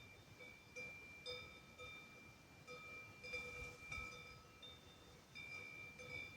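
Several cowbells at different pitches ringing faintly and irregularly, with fresh strikes every half second to a second and the tones ringing on between them.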